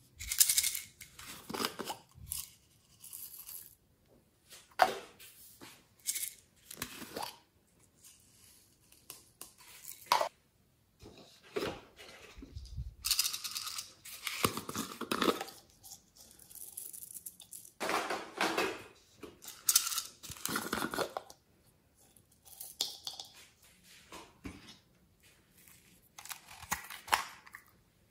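Small plastic slime containers handled and opened by hand, with a band or seal pulled off one of them. The handling comes in short, irregular bursts of rustling and scraping, with brief pauses between them.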